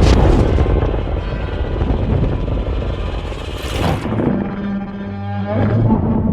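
Designed monster-film sound effect: a heavy low rumble with a sharp crack at the start and another about three and a half seconds in, ending in a low pitched drone that starts to fade near the end.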